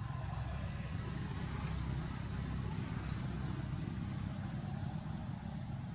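Steady low rumble with an even hiss above it.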